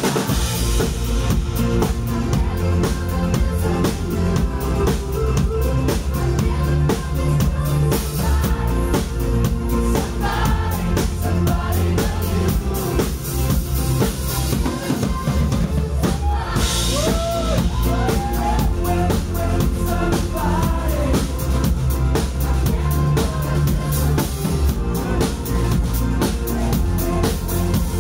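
Live pop band playing loud and continuous: a full drum kit with a steady kick and snare, with bass, keyboards and a woman's singing voice at times.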